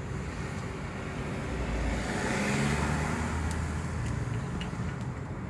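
A vehicle driving slowly: a low engine hum with tyre and road noise, swelling louder about two seconds in and easing off again.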